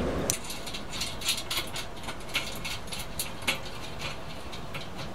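Short, irregular metallic clicks, taps and scrapes of bolts, nuts and hands working inside a small steel cement-mixer drum as a bolt is taken out to be moved over one hole.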